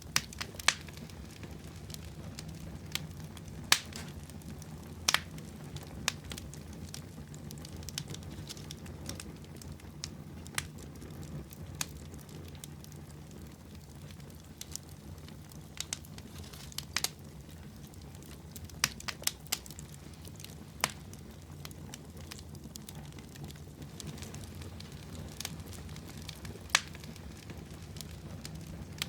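Wood campfire burning: a steady low rumble of flames with sharp, irregular pops and crackles every second or so.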